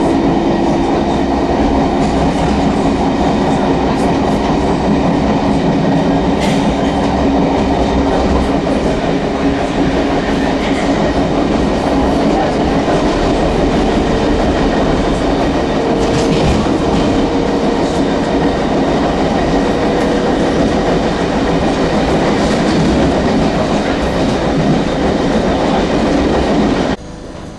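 London Underground A Stock train running at speed: a steady rumble of wheels on rail with a motor whine that drifts in pitch and occasional clicks. The sound cuts off suddenly near the end.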